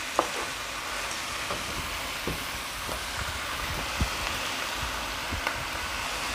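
Quail pieces with onions and peppers sizzling steadily in a frying pan, with a few short knocks of a wooden spoon against the pan as the mix is stirred.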